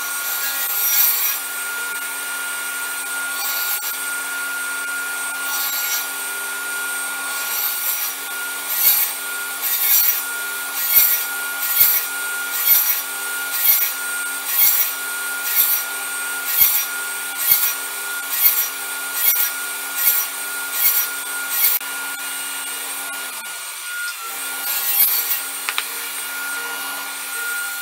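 Table saw running with a steady whine, its blade set about 10 mm high to cut a shallow recess across a wooden piece on a crosscut sled. Through the middle of the run comes a quick series of short cutting strokes, about one a second, as the recess is nibbled out pass by pass.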